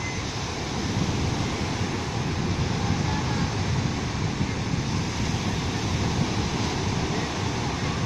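Sea waves breaking and washing up a sandy beach, a steady rush of surf, with wind on the microphone.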